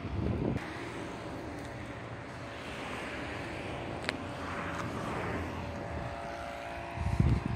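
Steady road-traffic noise, with a vehicle passing and fading out about halfway through. Wind buffets the microphone near the end.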